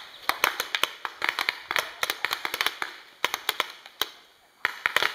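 Paintball markers firing in quick, irregular strings of sharp pops, thinning out briefly about four seconds in.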